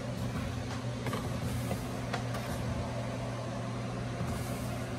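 A steady low machine hum, with a few faint taps and rubs as a carbon-fibre rear diffuser is handled and pressed up against a car's rear bumper.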